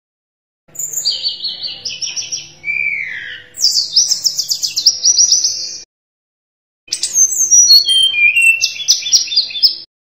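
Tledekan gunung, a blue flycatcher, singing two long, high-pitched phrases of rapid trilled notes and falling sweeps, with a break of about a second between them.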